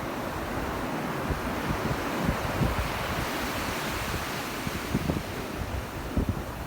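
Sea surf breaking and washing up the beach in a steady rush, swelling about two to three seconds in, with wind buffeting the microphone.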